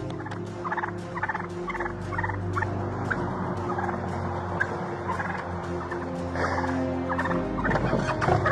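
A turkey gobbling: a quick run of rattling calls in the first few seconds, then scattered gobbles.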